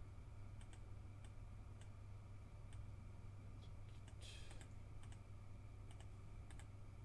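Faint computer mouse clicks and keyboard keystrokes, scattered and irregular, with one slightly louder, longer click about four seconds in. A steady low electrical hum runs underneath.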